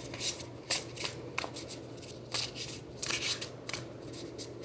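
A large tarot deck being shuffled by hand: a run of short, irregular crisp card flicks and slaps, several strong ones about half a second to a second apart.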